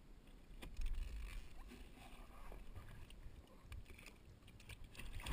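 Water splashing and sloshing beside a boat as a hooked blue catfish tugs a floating plastic jug on a jug line, with a few short knocks as the line and jug are handled.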